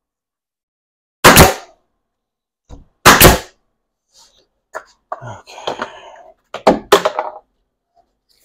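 Two sharp shots from a pneumatic nail gun about two seconds apart, then a few seconds of lighter, irregular knocks and rattles.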